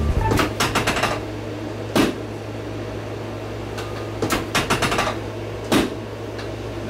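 Sharp clicks and knocks from a chiropractic adjustment of a child's hip and joints: a quick flurry at the start, single sharper knocks at about two seconds and near the end, and another rapid run between them. A steady low hum sits underneath.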